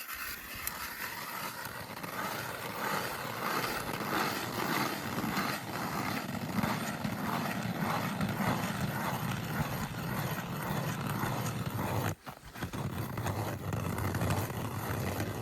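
Ice auger boring a new hole through lake ice: a steady grinding with a slow repeating beat, which breaks off briefly about twelve seconds in and then starts again.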